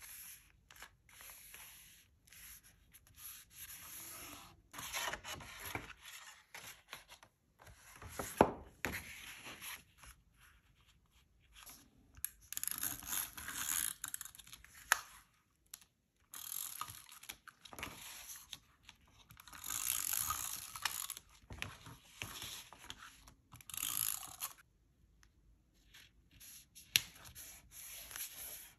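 Paper being handled and worked by hand: rustling, rubbing and scraping in irregular bursts with short pauses between them, and a few sharp clicks or taps.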